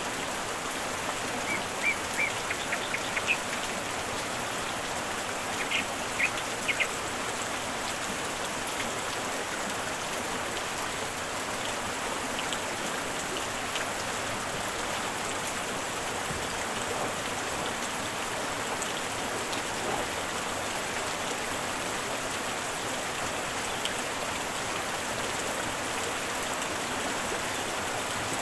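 Steady rain falling onto the water of an outdoor pool, an even hiss of drops. A few short high chirps sound in the first seven seconds.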